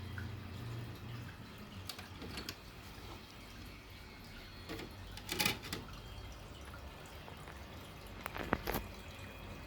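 Scattered small clicks and knocks from handling the CD tray of a Technics HD301 mini hi-fi, a few at a time over a low steady hum, with the loudest knock about halfway through.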